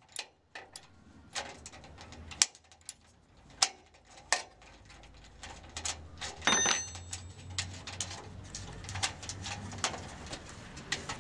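Irregular metal clinks and knocks of hand tools working the bolts of a galvanized steel frame, with one ringing metallic clang about six and a half seconds in.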